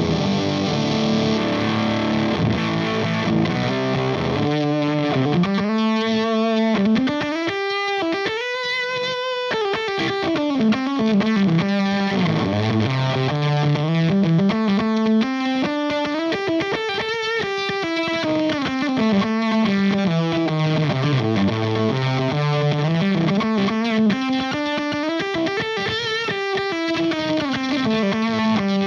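Electric guitar played through the fuzz side of a Valco Bloodbuzz drive/fuzz pedal, a heavily distorted fuzz tone. The notes move in runs that climb and fall in pitch several times.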